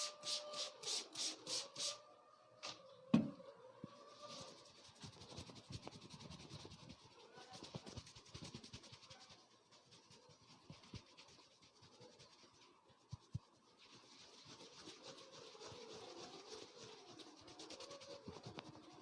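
Hands rubbing and scratching over hair and skin during a barber's head massage. Quick rhythmic strokes for the first couple of seconds give way to softer, uneven rubbing, with a sharp click about three seconds in and a smaller one later.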